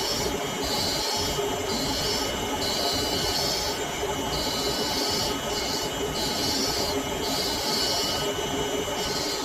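Motor-driven sharpening grinder running steadily while a scissor blade is pressed to it in repeated passes, a gritty hiss about once a second.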